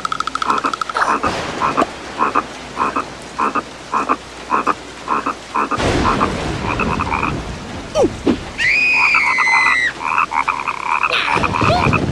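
Cartoon soundtrack of rain falling, with a run of short croak-like calls repeating about twice a second through the first half. A low rumble comes about six seconds in, and a long high-pitched call, falling slightly in pitch, comes about nine seconds in.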